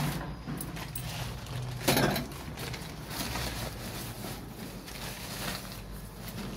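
Thin plastic carrier bag crinkling and rustling as it is handled, in small crackly clicks over a steady low hum. A short voice sound about two seconds in.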